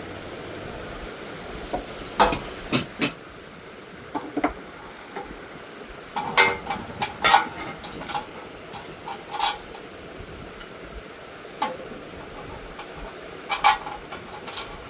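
Metal parts and tools clinking and knocking irregularly while an industrial sewing machine stand is assembled. The sharp clanks come in clusters, with a low steady background noise underneath.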